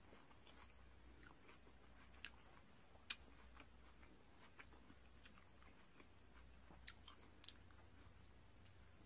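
Quiet, close chewing and mouth sounds of a person eating soft bread, with scattered faint clicks and a sharper click about three seconds in.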